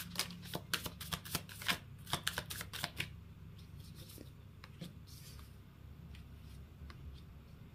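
Tarot cards being shuffled by hand: a quick run of crisp card flicks for about three seconds, then a few sparser flicks and slides as cards are handled and laid down on the table.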